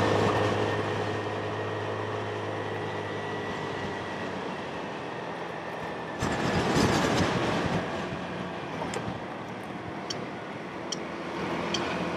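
Motorcycle riding noise picked up by a helmet-mounted mic: steady road and wind rush, with an engine hum fading over the first few seconds. About six seconds in the rushing noise swells suddenly for a second or two, then settles.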